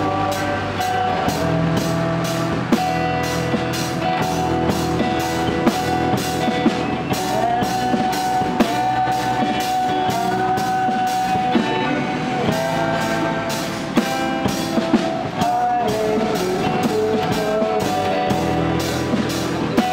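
Live acoustic band music: two acoustic guitars strummed while a drummer keeps a steady beat with sticks on a small drum kit and cymbals.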